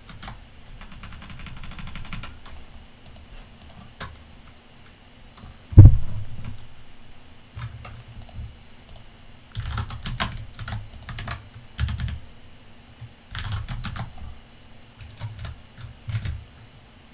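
Computer keyboard typing in short bursts of keystrokes. About six seconds in comes a single heavy thump, the loudest sound.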